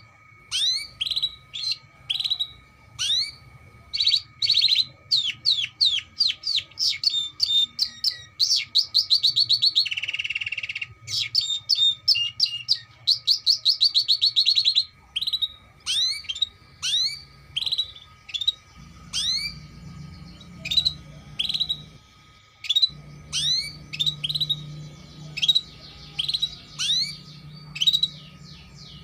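Domestic canary singing: a long run of sharp, falling chirps broken up by fast, rolling trills, with a short buzzy note about ten seconds in.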